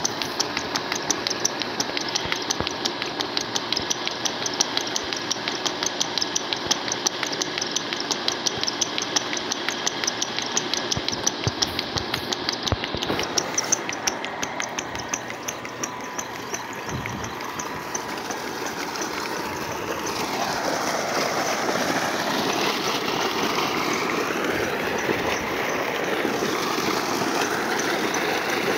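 A 15 hp, 1450 rpm electric motor belt-driving a 6-inch turbine pump, running with a steady whine and a rapid, even clatter. About two-thirds of the way through, water gushing from the delivery pipe takes over.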